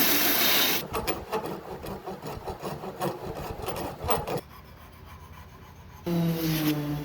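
Irregular hand rubbing strokes of a file or abrasive on a wooden knife handle, shaping the walnut. A steady power-tool hiss cuts off about a second in, and a motor hum starts near the end.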